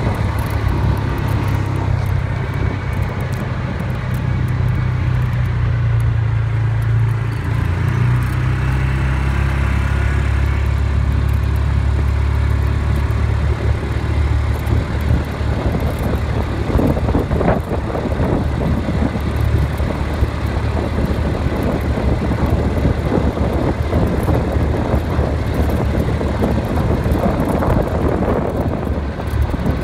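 A vehicle driving along a gravel dirt road: a steady low engine drone with tyre noise and rattling over the gravel, which gets rougher from about halfway on.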